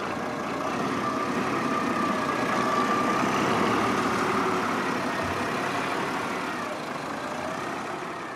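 Diesel farm tractor engine running as the tractor drives past pulling a tipping trailer, growing louder to a peak about halfway through and fading toward the end, with a whine that wavers in pitch over the engine.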